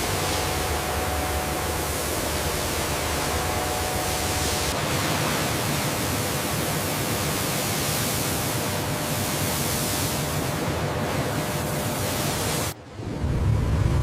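Steady hiss-like noise over a low rumble. It cuts off abruptly near the end, and a stronger low rumble comes in after it.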